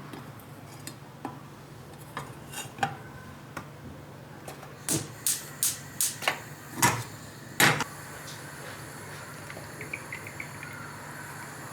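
Kitchen dishes and utensils clinking and knocking: scattered light clicks, then a run of about eight sharper knocks about five seconds in, over a steady low hum.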